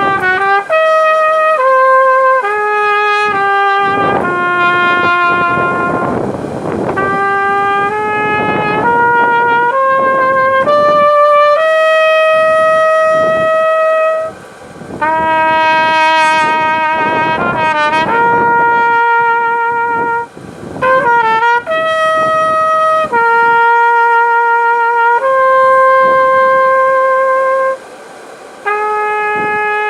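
A solo wind instrument with a bright, brassy tone plays a slow melody, one note at a time. Notes are held with some vibrato, and short pauses separate the phrases.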